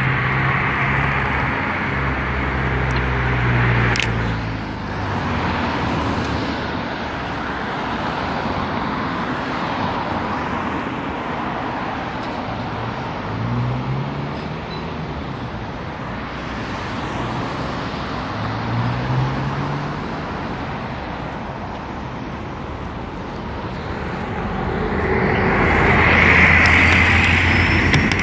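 Town road traffic heard from a moving bicycle: cars driving past with steady tyre and road noise, their engines rising in pitch a few times as they pull away. There is a louder rush in the last few seconds.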